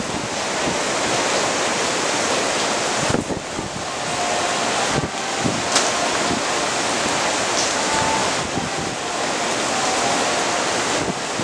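Strong gusty wind blowing across the microphone over the steady rush of ocean surf, swelling and easing from moment to moment.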